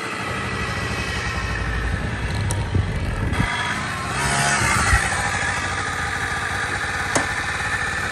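Motorcycle engine running steadily, with two brief sharp ticks.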